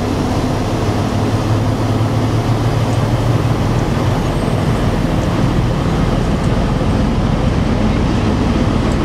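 Class 17 Clayton diesel locomotive running with a steady low engine note as it moves slowly away along the platform.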